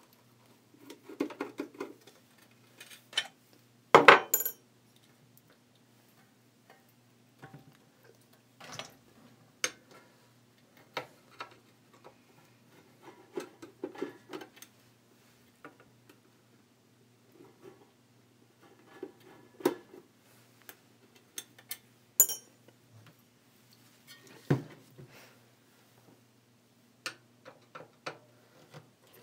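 Screwdriver undoing the screws in the metal base of a vintage General Electric Vortalex fan: short spells of scraping as the screws turn, with scattered metallic clinks and a few sharp knocks, the loudest about four seconds in.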